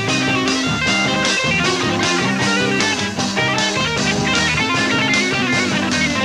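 Rock band playing an instrumental passage, guitar lines over a steady beat.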